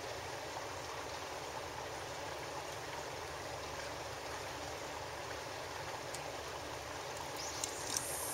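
Steady, even rushing noise with a few light clicks near the end.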